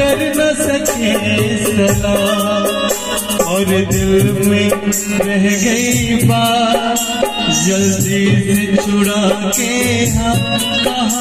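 Instrumental interlude of a live Indian band: a keyboard melody over low hand-drum beats and a steady, fast shaker-like rhythm.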